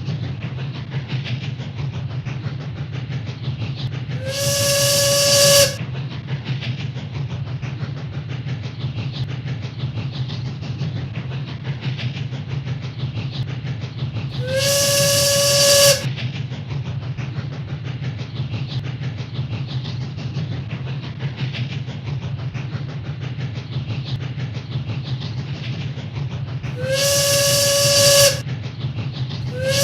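A train's steady low rumble running throughout, with three toots of a steam whistle, each about a second and a half long and about eleven seconds apart. Each toot comes in with a hiss, slides up slightly onto one steady note, grows louder, then cuts off abruptly.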